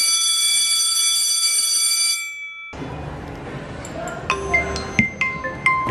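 A steady, high electronic tone that cuts off about two seconds in, then, after a short lull, a smartphone's marimba-style ringtone starts up: quick, bright, plucked-sounding notes in a repeating tune.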